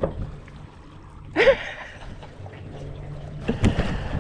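Water splashing and trickling around a small boat as a fish is landed. A short cry comes about a second and a half in, and sharper knocks and splashes come near the end.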